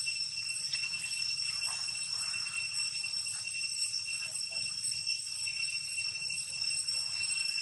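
Steady high-pitched insect drone, one unbroken ringing tone with overtones, with faint scattered rustles beneath it.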